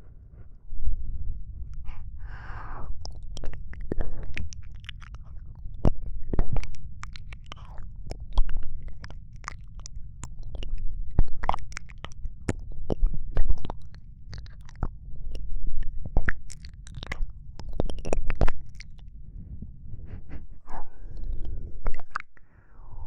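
Close-miked ASMR mouth sounds: wet clicks and smacks of lips and tongue right at the microphone, over a steady low rumble. There is a soft breath about two seconds in.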